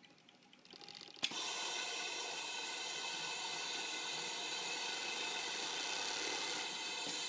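Sahl 5100 EX-3 industrial cylinder-arm overlock (safety-stitch) sewing machine starting up about a second in with a sharp click, then running steadily as it stitches stretch swimwear fabric.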